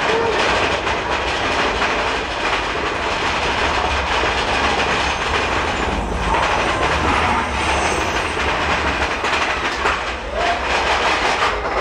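Big Thunder Mountain Railroad mine-train roller coaster running along its track: a loud, steady rumble and clatter of the train's wheels on the rails.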